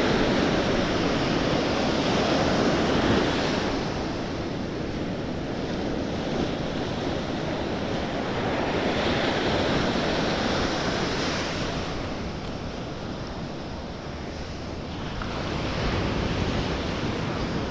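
Ocean surf breaking and washing up a beach, swelling and easing every few seconds, with some wind on the microphone.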